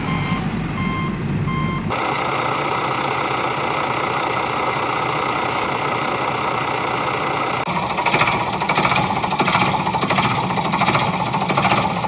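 Heavy vehicle sounds: a reversing beeper sounding about twice a second over an engine rumble, which cuts off about two seconds in to a steady engine drone; about eight seconds in this changes to a rhythmic knocking chug a few times a second, like a diesel tractor engine running.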